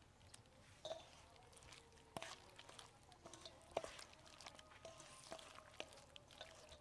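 Near silence, with faint wet squelching and scattered small clicks from a hand kneading chicken into a thick marinade in a stainless-steel bowl.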